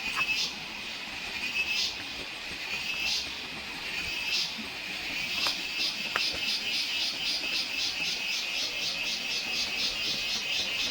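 Forest insects trilling: a steady high-pitched drone with a pulsing call over it, about one pulse every second and a quarter at first, quickening to four or five pulses a second from about halfway.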